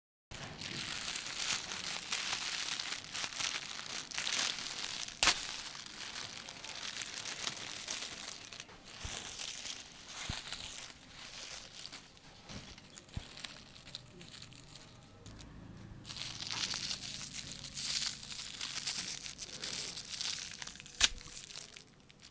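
Aluminium foil crinkling and crumpling in the hands as foil-wrapped toy cars are unwrapped, coming in uneven bursts. Two sharp clicks stand out, one about five seconds in and a louder one near the end.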